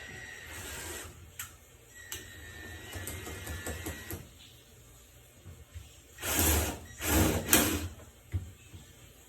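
Work noise on a front-load washer door boot: small clicks and rubbing, then three loud rasping scrapes close together about six seconds in.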